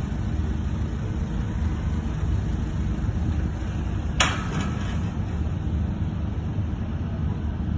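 A steady low rumble, with one sharp click about four seconds in.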